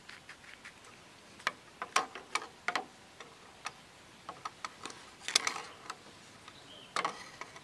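Irregular sharp clicks and ticks, with a quick cluster about five seconds in.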